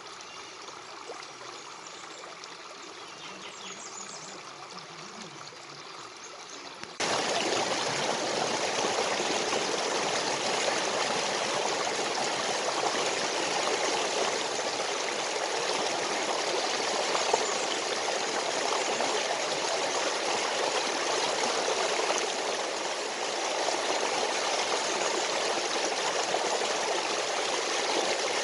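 Stream water running and gurgling, with a few faint bird chirps in the first seconds. About seven seconds in, the water sound jumps abruptly much louder and fuller and stays steady.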